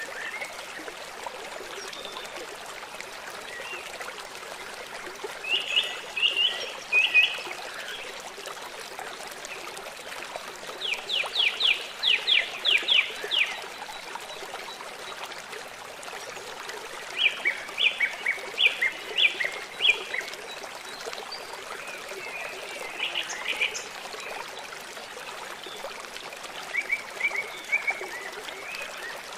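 A songbird singing short phrases of quick repeated notes, five phrases spaced several seconds apart, over the steady trickle of running water.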